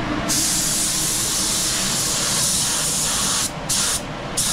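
Air spray gun hissing as it sprays thinners mixed with the last of the clear coat to melt in the blend edge: one steady spray for about three seconds, then a few short bursts near the end as the trigger is pulled and released.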